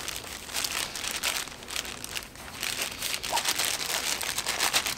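A rag scrubbing sprayed-on grime off a small metal plate from a ring roller, with the plastic sheeting under the hands crinkling, in irregular rubbing strokes.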